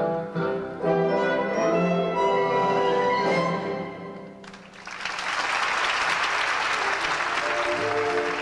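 Orchestral music closing on a fading phrase, then an audience applauding from about halfway through.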